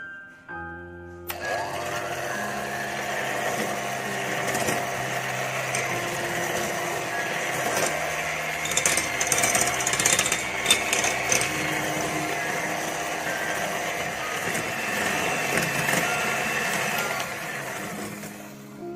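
Electric hand mixer running, its twin wire beaters whipping egg whites and sugar in a bowl with a steady motor whine and some rattling against the bowl near the middle. It starts about a second in and stops just before the end, over soft piano music.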